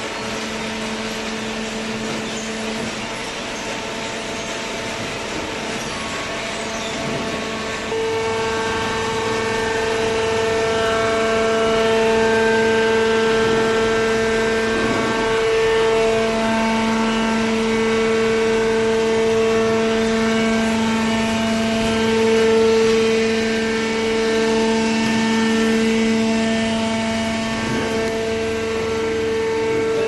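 Hydraulic cardboard baler running: a steady machine hum with a whine, stepping up louder about eight seconds in.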